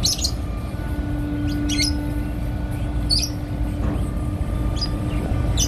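Steady low rumble of ship engines, with a steady hum that sets in about a second in. Five short, high chirps come through at intervals.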